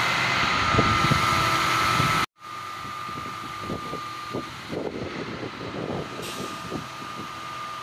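Putzmeister pump machinery running, a steady drone with a constant high whine. It cuts off abruptly a little over two seconds in and comes back quieter, with scattered irregular knocks.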